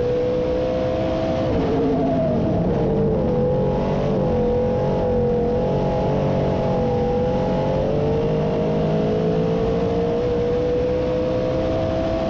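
358 small-block V8 of a dirt modified race car at racing speed, heard from inside the cockpit. The engine note drops about a second and a half in as the car lifts into a turn, wavers through the corner, then climbs steadily as it accelerates back up to speed down the straight.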